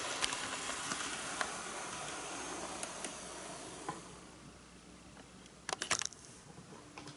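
HO-scale KiHa 110 model railcar running on sectional track. The rolling hiss fades as it slows to a stop, with scattered clicks over the rail joints. A short cluster of clicks comes about six seconds in.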